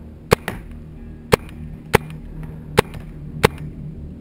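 Magazine-fed paintball marker firing single shots at a steady pace, about six sharp cracks a little under a second apart, with a fainter crack just after the first.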